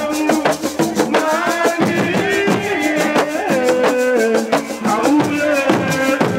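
Music with fast, dense drumming and a singing voice over it.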